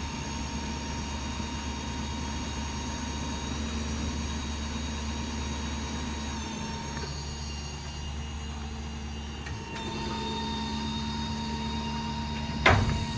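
Hydraulic crane on a diesel service truck running by remote: a steady low engine hum under a whining hydraulic drive, its pitch shifting twice as the crane's motion changes. A single sharp clunk comes near the end.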